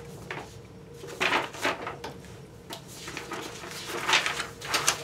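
Papers being handled on a desk: rustling and light knocks in two short bursts, one about a second in and one near the end, over a faint steady hum.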